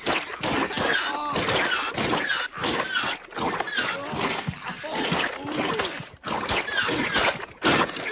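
A busy run of short squeaks and chirping pitch glides, mixed with clicks and splashy noises.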